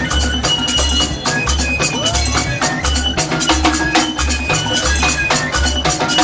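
Egedege traditional Igbo music ensemble playing: dense rattles and hand percussion over a deep drum beat about twice a second, with a woman singing into a microphone.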